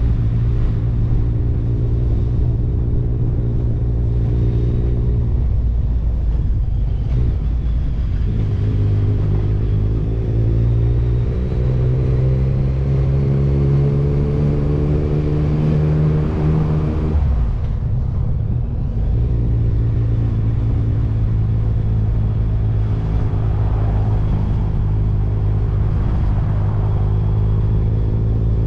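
Motorcycle engine running while riding. The revs climb steadily from about eight seconds in, drop away suddenly a little past halfway, then settle into a steady note again.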